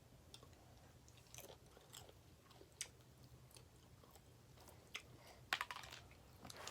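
Faint chewing and wet mouth clicks of someone eating pizza, in scattered short smacks, with a louder cluster of clicks about five and a half seconds in.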